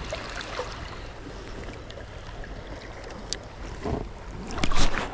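Choppy sea water lapping and sloshing around a person wading waist-deep, with wind on the microphone. A brief louder rush of noise comes a little before the end as the arm swings up with the rod.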